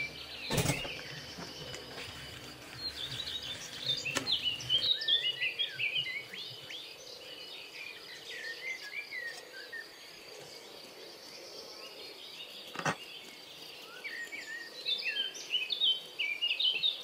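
Small birds chirping and twittering in short busy bursts, with a few sharp clicks, one about half a second in, another about four seconds in and one near thirteen seconds.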